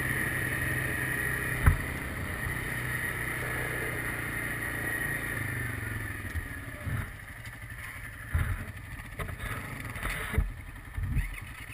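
ATV engine running steadily while riding, its note fading about seven seconds in as the quad slows. After that come scattered knocks and bumps.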